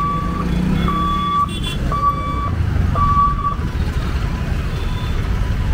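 Electronic warning beeper sounding a steady high beep about once a second, each beep about half a second long, over the running engines of motorbikes and cars crossing. The beeps grow much fainter about three and a half seconds in.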